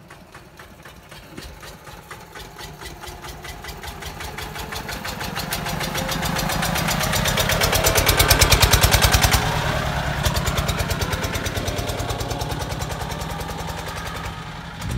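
Vintage tractor engine running with a fast, even thudding beat as the tractor drives by. It grows louder as it approaches, is loudest about halfway through, then fades as it moves away.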